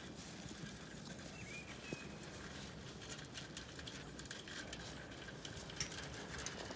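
Zwartbles sheep eating from a feed trough: a patter of small crunching clicks that comes thicker in the second half.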